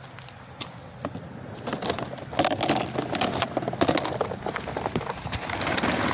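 A flock of young racing pigeons taking off together, a rapid clatter of wing claps and flapping that builds from about two seconds in.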